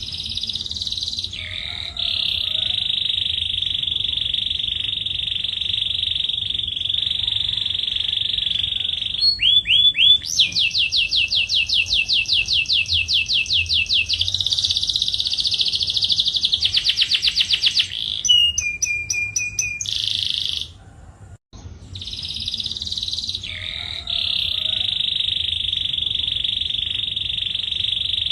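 Male canary singing a long, loud song of sustained trills. A fast rolling series of notes comes in the middle, the song breaks off briefly, then the trills start again.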